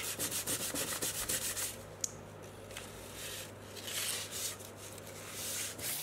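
Sandpaper rubbed by hand along the edge of a wood veneer, sanding it flush at the corner of the cabinet. Quick back-and-forth strokes come fast at first, then slower, lighter passes, with one small click about two seconds in.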